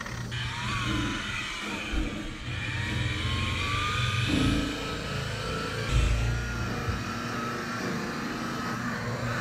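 DeWalt electric polisher running against a boat's fibreglass gel coat, its motor whine gliding up in pitch about two seconds in and then wavering as it is worked under load. A low bump about six seconds in.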